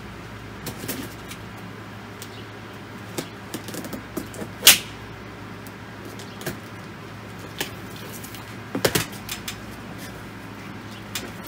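Large cardboard box being opened by hand: scattered scrapes, taps and knocks of cardboard being handled and cut, with one sharp rasp about halfway through and a quick cluster of knocks a little before the end.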